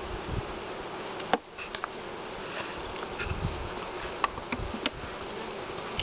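Steady hum of honeybees around a wooden beehive, with a few sharp metallic clicks from a ratchet strap being tightened on the hive, the loudest about a second in.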